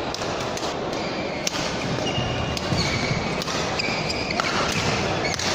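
Badminton doubles rally in a sports hall: rackets strike the shuttlecock with sharp cracks every half second to a second, while shoes squeak in short high chirps on the court floor over a steady hall murmur.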